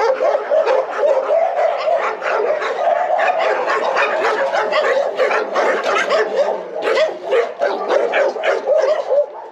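A pack of kennelled dogs barking at once, many overlapping barks in a constant rapid chorus.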